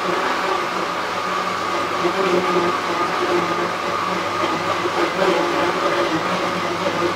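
Sinbo countertop blender motor running steadily at full speed, blending dragon fruit with water into juice.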